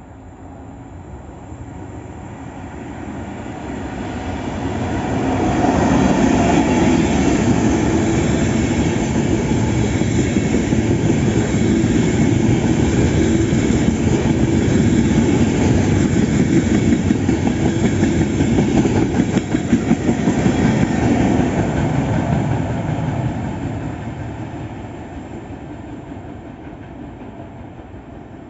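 A train passing through a station: it grows louder for several seconds as it approaches, runs by at full loudness for about fifteen seconds with steady wheel-on-rail noise and some rhythmic clatter over rail joints, then fades as it draws away.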